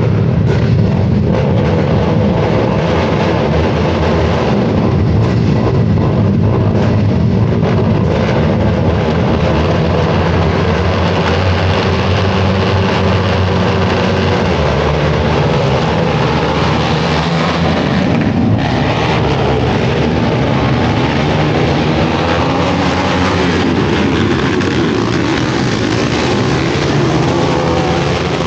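Several racing quad ATV engines running hard together, their pitches rising and falling as the quads go around the dirt track.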